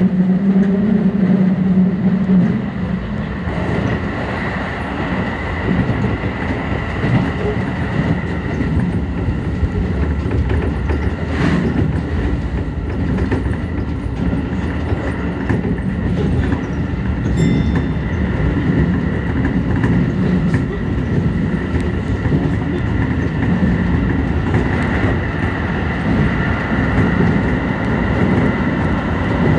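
Keio 8000 series electric train running along the line: steady rolling wheel-on-rail noise with a hum that fades about three seconds in, and a few sharp clicks.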